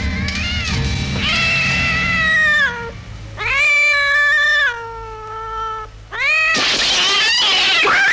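A cat yowling: long drawn-out cries that slide down in pitch, turning into a harsh screech about two-thirds of the way through, over a low droning film score.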